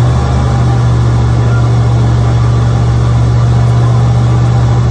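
Tour boat's engine running loud and steady at raised revs, a low, even hum.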